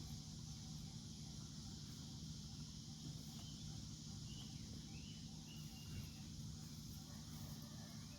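Steady high chirring of insects, such as crickets, over a low hum, with a few faint bird chirps near the middle.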